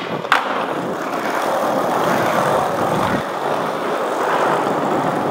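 Skateboard landing with a sharp clack about a third of a second in, then the urethane wheels rolling steadily over a smooth tiled floor.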